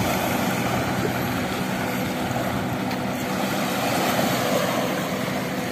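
Small waves washing onto a sandy, pebbly shore, with the steady drone of a boat engine underneath.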